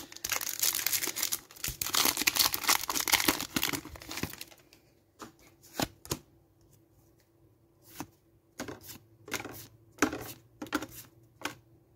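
A foil Pokémon booster pack wrapper being torn open and crinkled for about four seconds, then a run of light, separate clicks and flicks as the trading cards are slid one at a time through the hand.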